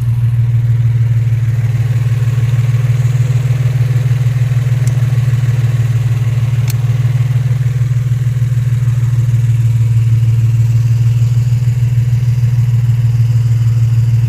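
2003 Infiniti G35's 3.5-litre V6 running steadily with its mass airflow sensor unplugged, still misfiring.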